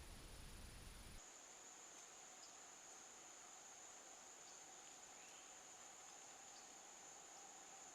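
Faint, steady high-pitched insect trilling, a cricket-like chorus. It starts abruptly about a second in, where a low rumble cuts off.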